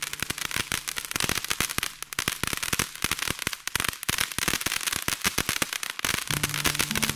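Firework on a ground stand giving off a rapid, irregular string of sharp cracks and pops, many a second, as it sprays sparks. The crackling dies away about six seconds in.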